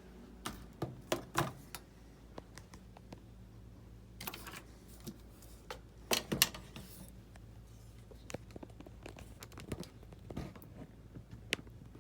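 Hands handling an RC model jet airframe: scattered clicks, taps and light knocks of plastic and foam parts being moved, in small clusters, over a faint steady hum.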